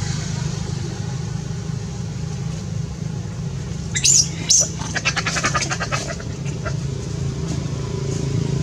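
Two sharp, high-pitched squeaks from a baby long-tailed macaque about four seconds in, half a second apart, followed by a quick run of rapid clicking chatter, over a steady low hum.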